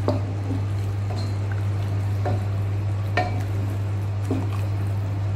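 A wooden spoon stirring chicken pieces in thick, simmering tomato sauce in a pot, knocking against the pot four times, over a steady low hum.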